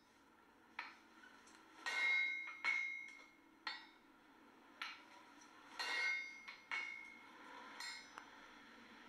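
Blacksmith's hammer striking metal on an anvil, about nine ringing blows at roughly one a second with uneven spacing.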